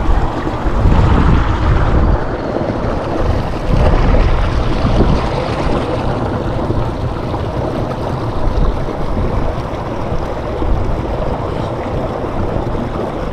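Wind buffeting the microphone, a loud, rough rumble that swells in gusts about a second in and again about four seconds in.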